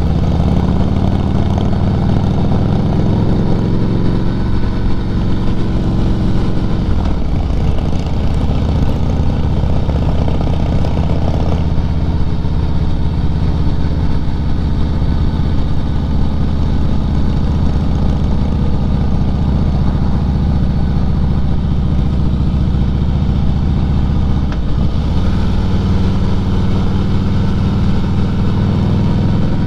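Vehicle engine running steadily on the road, a loud low hum with road noise. The engine note shifts a few times as speed changes, with a brief dip about 25 seconds in.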